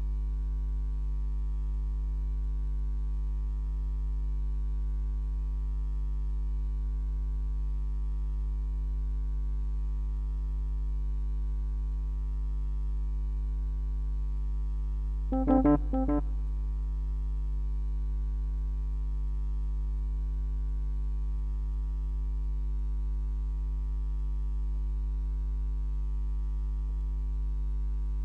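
Steady electrical mains hum, a low buzz with a long series of even overtones that sounds like a held organ note. About halfway through there is a brief, louder burst lasting under a second.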